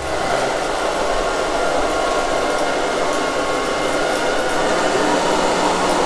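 LIECTROUX B3000 PLUS robot vacuum running over a wooden floor: its suction fan and brushes make a steady whirring hiss with a faint whine, holding level throughout.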